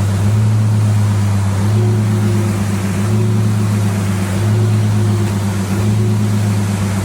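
An engine running steadily at a constant speed, a low, even drone that swells and eases slightly every second or so.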